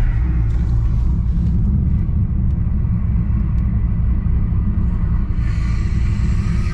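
Camaro SS V8 with an aftermarket Texas Speed camshaft, running loud on the move with a steady low rumble. About five seconds in, a brighter hiss joins the rumble.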